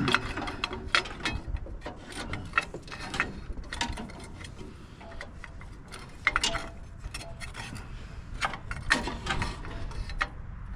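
Hand work on a tractor's battery cable: irregular metallic clicks, taps and rattles of tools and cable parts being handled.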